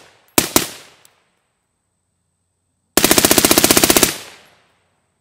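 Suppressed 11.5-inch 5.56 AR-style rifle with a Griffin Armament DL5 suppressor firing: a quick pair of shots about half a second in. About three seconds in comes a fast automatic burst of well over a dozen evenly spaced shots lasting about a second. Each shot is followed by a short echo.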